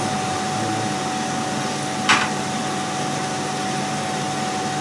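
Steady fan-like background hum carrying one constant tone. About two seconds in, a brief scrape of a utensil in the pan as coconut milk is mixed in.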